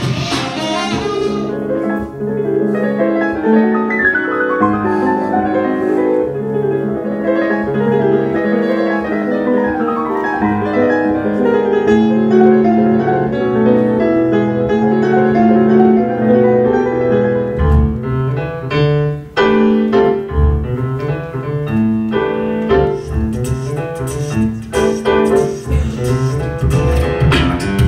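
Grand piano playing a melodic passage. About two-thirds of the way in, beatboxing into a microphone joins it, adding deep bass thumps and sharp percussive clicks.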